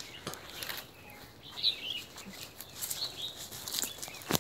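A few short bird chirps from the trees, with scattered sharp clicks and crackles.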